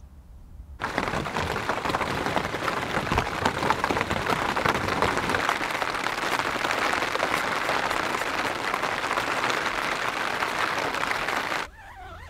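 Rain falling on a tent's fabric, heard from inside the tent: a dense, even hiss of countless small drop impacts that starts suddenly about a second in and cuts off just before the end.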